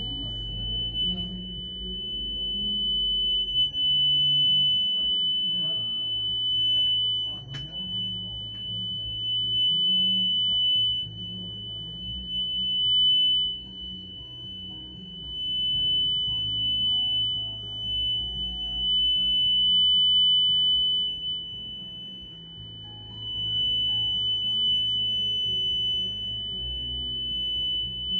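A steady, high-pitched sine test tone from the amplifier test bench, swelling and easing slightly in loudness. Low notes that shift in pitch sound underneath, like music, and a single click comes about a quarter of the way in.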